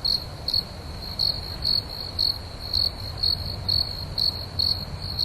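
Crickets chirping: a high, steady trill swelling about twice a second, over a low steady rumble of night ambience.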